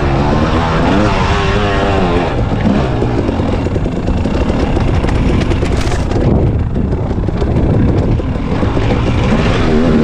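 Husqvarna TX 300 two-stroke dirt bike engine being ridden hard over a rough trail, its note rising and falling with the throttle in the first couple of seconds, then running on under load.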